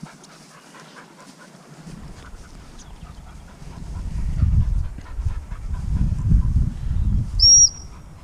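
A dog panting under a loud low rumble, then one short, high blast on a gundog whistle near the end: the single-pip sit/stop whistle given without the spoken cue.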